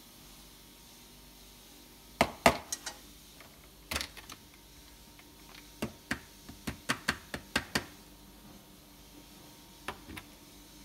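Hario Coffee Mill Mini hand grinder being handled after grinding: sharp plastic and glass clacks and knocks as the grinder body is worked off its glass grounds jar and the parts are set down on the counter. A loud pair comes about two seconds in, a quick run of about eight clicks comes in the middle, and two more come near the end.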